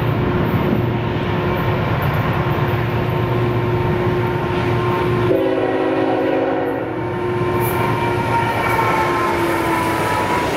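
Diesel-electric train running by with a steady rumble and its horn sounding: a held tone, joined about five seconds in by a fuller chord of several notes for under two seconds.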